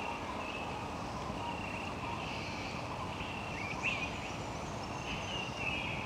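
Rainforest ambience: birds calling in short, repeated high notes over a steady background hiss, with no music.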